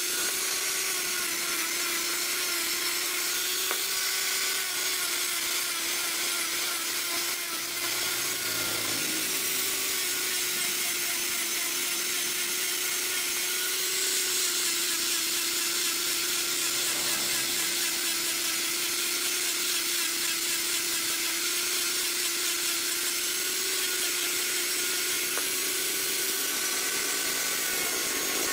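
Handheld angle grinder fitted with a sanding disc, running steadily while it sands a shaped wooden leg: a constant motor whine under the hiss of the abrasive on the wood.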